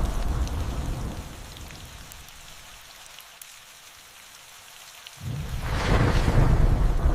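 Steady rain falling. A rolling thunder rumble fades away over the first two seconds, leaving only the rain hiss. Another rumble of thunder starts abruptly about five seconds in and builds.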